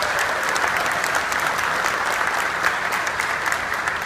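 Large seated audience applauding, many hands clapping at once in a loud, steady round.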